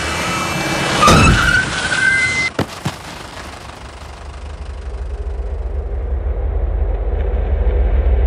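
Film sound effects: a sudden burst of noise, a loud hit about a second in with a high squealing tone that rises and holds, two sharper knocks, then a low pulsing rumble that swells toward the end.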